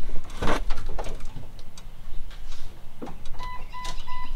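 A short clunk about half a second in, then near the end three short, evenly spaced electronic beeps: the Jeep Cherokee XJ's dashboard warning chime with the ignition switched on.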